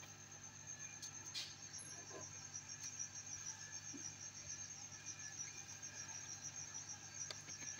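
A faint, high-pitched insect trill, pulsing steadily, over a low hum. A few light clicks of handled tools are heard, the clearest about a second and a half in.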